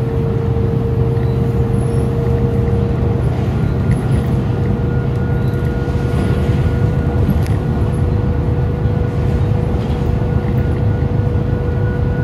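Cabin noise of an MTA Select Bus Service city bus: a steady low engine and road rumble with a constant whine over it.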